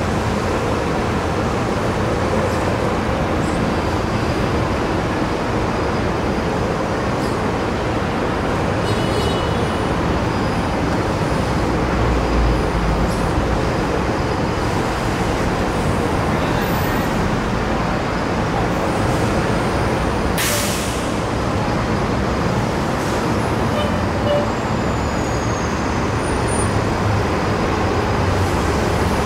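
Steady city street traffic: cars and a city bus passing, with a heavier low rumble about twelve seconds in and a short sharp hiss of air brakes about twenty seconds in.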